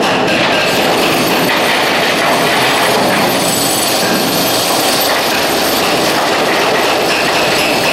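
Loud, steady clatter of heavy demolition machinery breaking up a concrete bridge deck.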